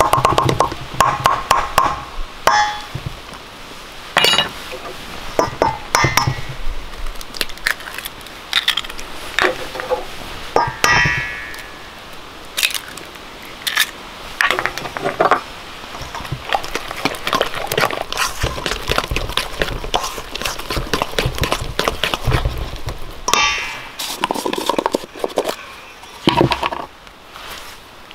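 Metal spoon stirring and scraping cornbread batter in a stainless steel mixing bowl: repeated clinks and knocks against the bowl, some ringing briefly.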